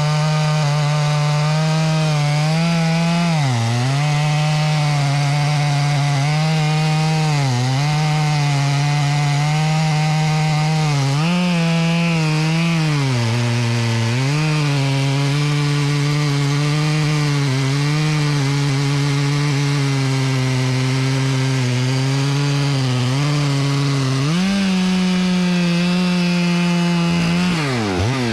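Stihl chainsaw cutting into a silver maple trunk at full throttle, its engine pitch sagging briefly again and again as the chain loads up in the cut. Near the end it runs at a higher, steady pitch, then falls off.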